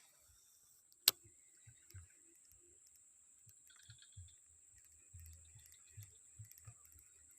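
One sharp click about a second in, then faint scattered knocks and small ticks over a steady high-pitched hiss.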